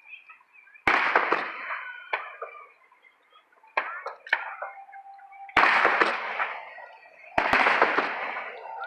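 Aerial firework shells bursting overhead: four loud booms about two seconds apart, each trailing off over a second or so.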